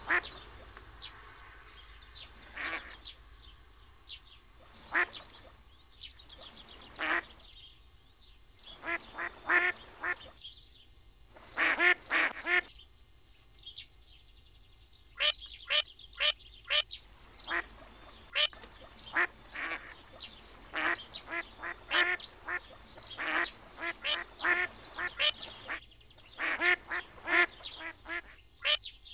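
Duck quacking: many short quacks in runs, some in quick strings of four or five, with pauses between.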